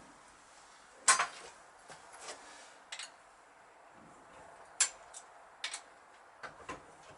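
Scattered metallic clinks and knocks from hand tools and parts while the front fork tubes of a Yamaha XS650 motorcycle are tightened and set level in the yokes. The loudest knock comes about a second in, another sharp one near five seconds, and lighter taps fall in between and near the end.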